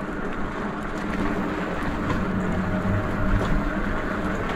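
A vehicle on the move: a steady low engine hum under even road noise.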